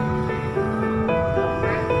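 Background music: a slow melody of held notes that change pitch every half second or so over a sustained low note.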